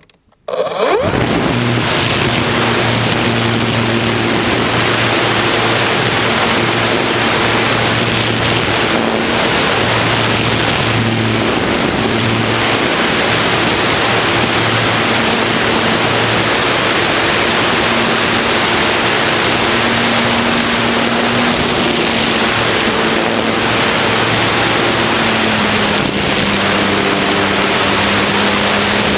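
Foam RC airplane in flight at about three-quarter throttle, heard from on board: a loud, steady rush of wind and propeller with a faint motor hum that shifts in pitch. It comes in suddenly about a second in as the power comes up.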